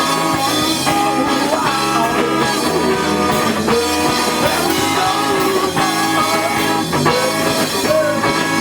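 Blues-rock band playing, with guitar to the fore and notes bent in pitch.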